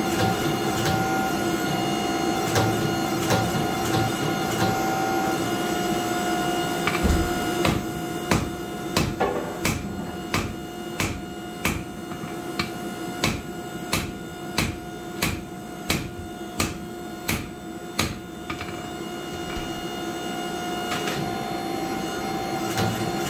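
Hand hammer striking hot steel on an anvil: about sixteen evenly spaced ringing blows, roughly three every two seconds, starting about a third of the way in and stopping a little past the middle. Under them runs a steady drone of shop machinery with a few held tones.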